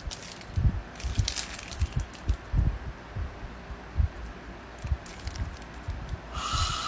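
Close-up wet licking of a hard lollipop: crackly mouth noises with scattered low thumps from the phone being handled. A steady hiss with a held tone comes in near the end.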